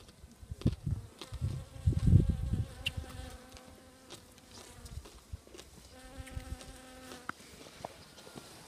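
Bee buzzing as it forages among frailejón flowers: a steady hum that comes and goes, strongest about six seconds in. Low rumbling thumps, loudest about two seconds in, are louder than the buzzing.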